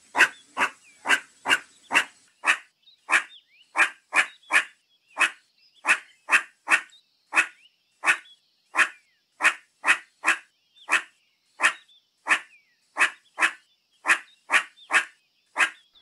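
Meerkat giving a long run of short, sharp calls, about two a second at a slightly uneven pace.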